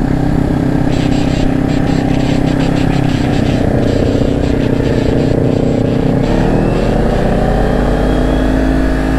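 Kawasaki Ninja 400's parallel-twin engine running at a steady cruise with wind rushing and buffeting at the helmet microphone, then its pitch climbing steadily from about six seconds in as the bike accelerates.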